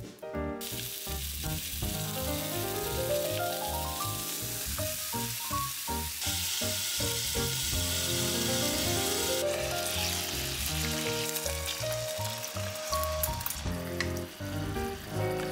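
Pork-wrapped rolls sizzling in oil in a frying pan, a steady high hiss that starts about half a second in and grows louder for a few seconds in the middle, over background piano music.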